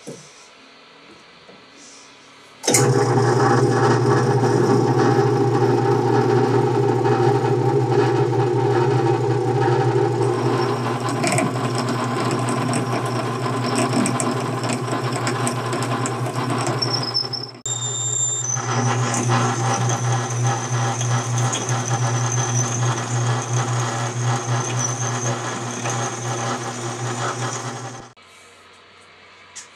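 Metal lathe running while a twist drill in the tailstock chuck bores a hole into a spinning aluminium workpiece: a steady machine hum with cutting noise, starting about three seconds in. It breaks off briefly about two-thirds through, a thin high squeal joins in the later part, and it stops near the end.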